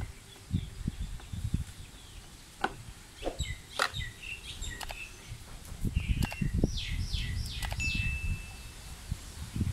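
Birds chirping in short calls and quick sweeps, over scattered clicks and low knocks from a screwdriver working at a scooter's plastic meter cover.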